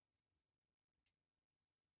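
Near silence, with one faint click about a second in.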